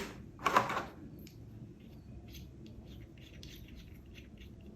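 A soft microphone carry pouch and its small accessories being handled: a click right at the start, a short rustle about half a second in, then faint small clicks and rubbing.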